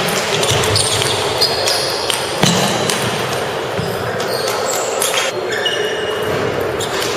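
Table tennis rally: the celluloid ball clicks sharply and irregularly off bats and tables, and more rallies are going on at neighbouring tables. Under it runs the steady background din of a busy hall.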